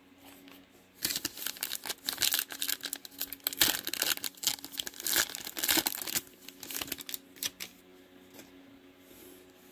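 Trading-card pack wrapper being torn open and crinkled in the hands: a dense run of crackling rustles from about a second in, thinning to a few scattered crinkles after about six seconds.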